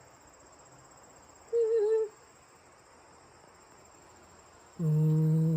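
A person humming: one short note about a second and a half in, then a longer held note with a slight waver starting near the end, over a faint steady high-pitched whine.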